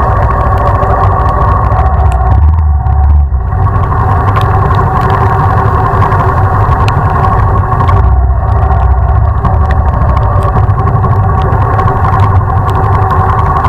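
Motorcycle engine running steadily on the move, with two brief dips in the engine note, about three and eight seconds in.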